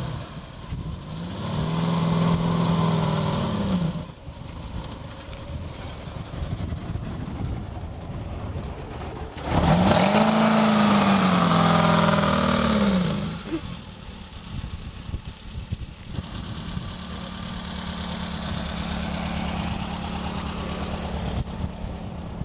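Dune buggy engine revving up and easing off twice as it pulls away across the sand. The second rev is the louder. It then settles into a steady run under way.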